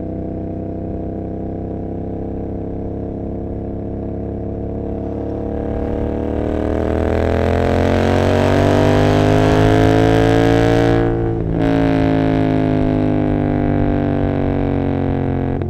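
Royal Enfield Continental GT 650's parallel-twin engine through aftermarket Emgo cafe mufflers, first running steadily, then accelerating hard with a rising pitch. It cuts briefly at an upshift about eleven seconds in and runs on at a lower pitch.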